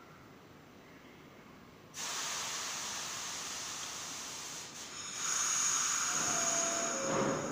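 Subway train's compressed-air system letting out a sudden, steady hiss about two seconds in. The hiss grows louder a few seconds later, with a thin high squeal over it near the end.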